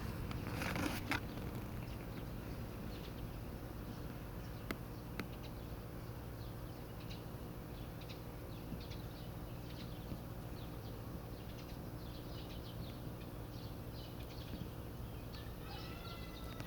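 Outdoor ambience: a steady low hum, a short rustle about a second in, many faint high ticks, and a brief bird call near the end.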